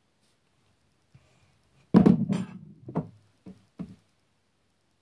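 A loud knock about two seconds in, then three lighter knocks, as hard objects are handled on a surface.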